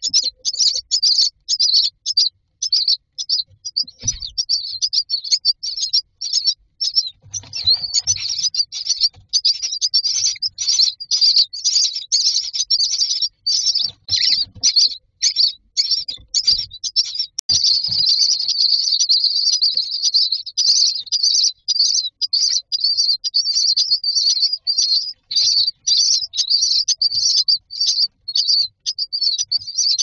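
Common myna nestlings begging for food: a dense stream of short, high-pitched shrill calls, several a second, without a break, with a few dull thumps in the wooden nest box.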